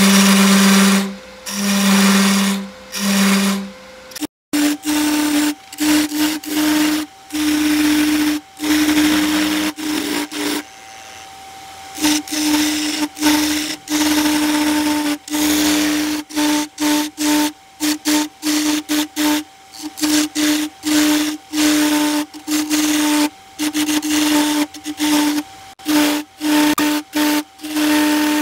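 Wood lathe running with a steady hum while a turning tool cuts the spinning walnut in many short passes. Each cut is a burst of hissing and scraping. After a brief break about four seconds in, the hum sits higher.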